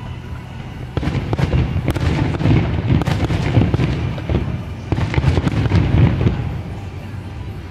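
Fireworks display: a quick run of booms and crackling bursts starting about a second in, densest in the middle, thinning out near the end.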